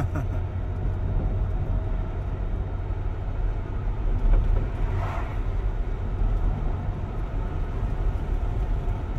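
Dodge Durango SUV running, a steady low rumble of engine and road noise.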